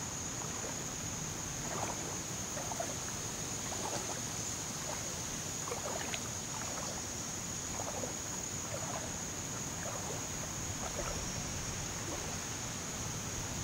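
Steady high-pitched drone of late-summer insects, with soft sloshing of water about once a second from steps through shallow floodwater.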